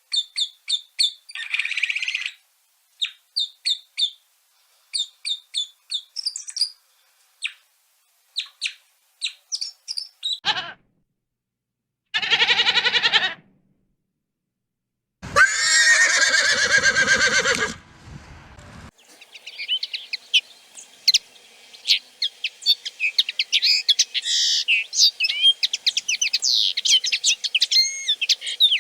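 A run of separate animal calls, one after another: repeated short, high bird chirps, then a brief falling call, a wavering call, and a loud call of about three seconds, followed by a dense chorus of birds twittering.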